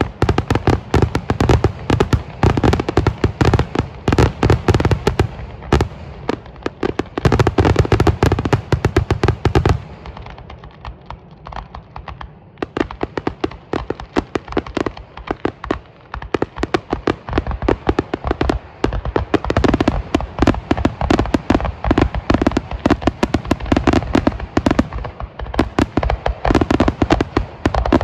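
Non-stop barrage of 2.5-inch aerial firework shells bursting, many bangs a second, overlapping into one rolling rumble. It thins out and quiets for a couple of seconds about ten seconds in, then builds back up.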